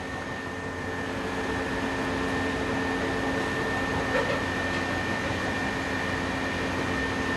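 Steady mechanical hum of commercial kitchen machinery: an even whooshing noise with a few held tones over it, one of them a thin high whine.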